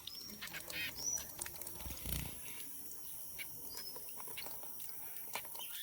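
Young songbirds giving short, high chirps while one bathes in water, with light splashing and a dull thump about two seconds in.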